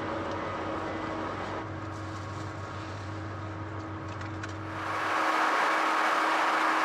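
Steady machinery drone of a car ferry, heard on the vehicle deck. About five seconds in, the low hum drops away and a louder, hissier wash of noise takes over.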